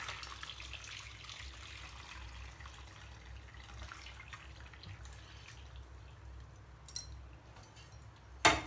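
Whey splashing and trickling as vinegar-curdled milk is poured from an aluminium pot through a cotton cloth over a strainer, straining off the chhena curds. The sound fades to a faint trickle as the whey drains. Near the end comes a sharp clink.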